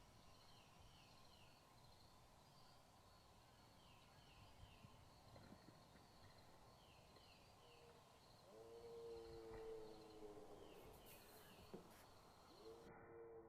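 Faint outdoor ambience with a small bird repeating a quick three-note falling phrase every few seconds. A lower, hoot-like call sounds twice in the second half.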